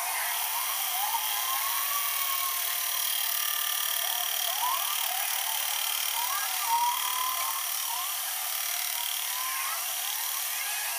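Metal lathe boring out the inside of a weld-repaired bearing housing: a steady high whine of the spinning work and cut, with short wavering tones from the boring tool on the metal now and then.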